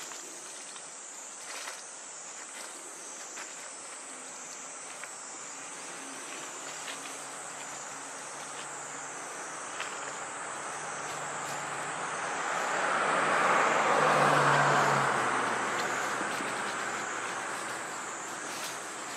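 A motor vehicle passes, its noise swelling slowly to a peak about two-thirds of the way through and then fading away. Under it, insects keep up a steady high, pulsing drone.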